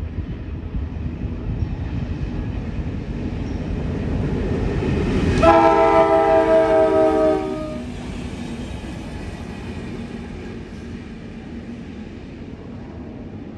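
Diesel freight locomotive rumbling as it passes close by. About five and a half seconds in it sounds its horn, a loud chord of several notes held for about two seconds. After that the engine rumble fades as it moves away.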